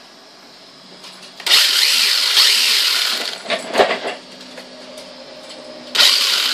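Electric motor and drivetrain of an EzRun-powered remote-control car revved in bursts. A high whirring whine starts about 1.5 s in and lasts nearly two seconds, a shorter burst comes just before 4 s, and another starts near the end.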